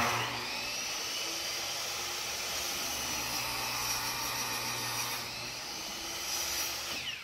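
Electric miter saw starting abruptly and running at full speed with a high whine as its blade is brought down through a wooden board, then winding down near the end, its whine falling in pitch.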